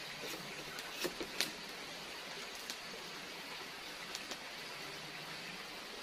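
Kitchen knife cutting raw potato into long strips for fries on a wooden board, the blade tapping sharply against the board a few times at uneven intervals, over a steady background hiss.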